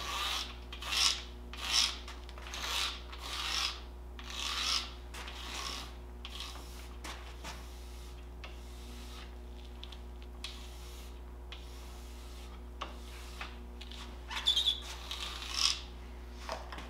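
Sponge applicator of a Swix Easy Glide liquid glide wax bottle rubbed in strokes along the base of a waxless cross-country ski, about one stroke a second. The strokes fade about six seconds in, and a brief flurry of rubbing comes near the end.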